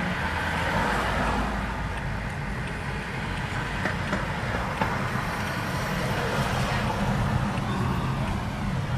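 Steady road and engine noise of a car driving through city traffic, heard from inside the cabin.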